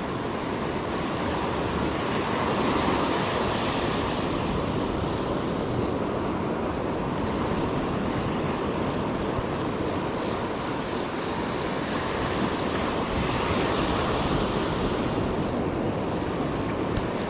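Steady noise of breaking surf and wind on the microphone, continuous and unbroken.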